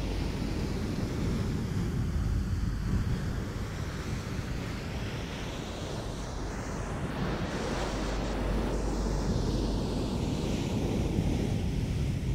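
Hands rubbing and stroking a soft fluffy blanket close to the microphone: a continuous rushing swish that swells and fades in slow waves.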